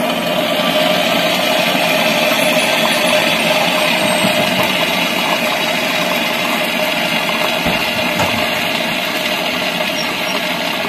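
Electric hot-water dispenser in a train car running as it fills a mug with hot water: a loud, steady mechanical hum with a rushing hiss.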